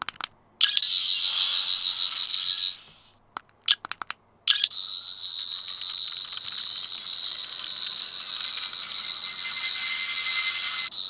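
14th Doctor sonic screwdriver toy playing its electronic high-pitched buzzing sound effects through its small speaker as its activation button is pressed repeatedly. In regular mode each press brings a different effect: a short pulsing buzz about half a second in, a few clicks of the button around three and a half seconds, then a long steady buzz from about four and a half seconds on.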